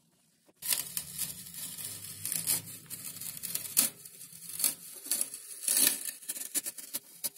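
Masking tape being peeled off the painted foam of an RC plane, a crackling, tearing sound made of many small irregular snaps, starting suddenly about half a second in.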